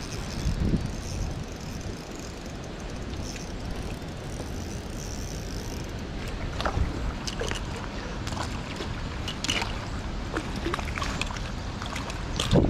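Wind buffeting the microphone in uneven gusts over a steady outdoor rush, with scattered small ticks in the second half.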